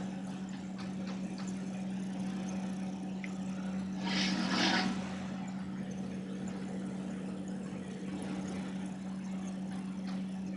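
A creamy chicken masala simmering in a pan and being stirred with a wooden spatula, with a brief louder scrape about four seconds in. A steady low hum sits under it throughout.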